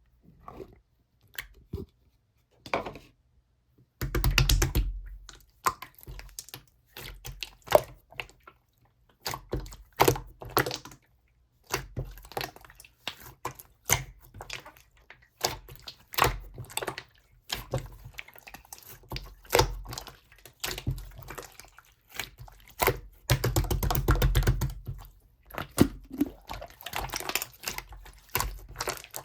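Slime being pressed, folded and poked by hand, giving a run of sticky clicks, pops and squishes. A few sparse clicks at first, then a dense crackling stretch from about four seconds in, with louder wet bursts.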